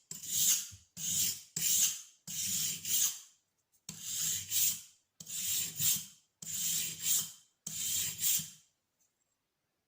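Steel spokeshave blade rubbed dry across a Parkside 2-in-1 sharpening stone, about eight rasping strokes in a steady back-and-forth rhythm, stopping near the end. The curved blade had been getting blunt and is being honed.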